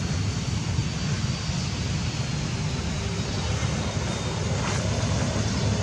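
Steady low rumble with an even hiss over it: outdoor background noise.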